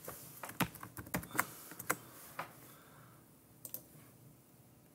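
Typing on a computer keyboard: a quick run of keystrokes over the first two and a half seconds, then a couple more clicks about a second later.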